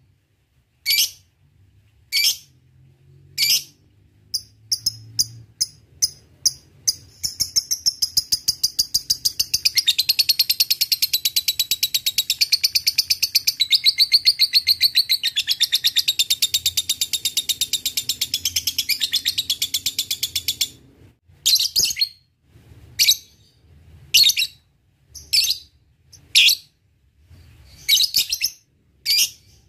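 Lovebird calling. Sharp, high single chirps come about one a second and quicken, then at about seven seconds they run into a long, unbroken, rapid chattering trill (the 'ngekek') that lasts about fourteen seconds. After that it goes back to spaced single chirps.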